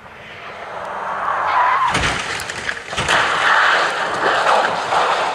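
A rally car coming closer and getting louder, then two heavy impacts about a second apart, followed by loud rough noise, as in a car crashing off the stage.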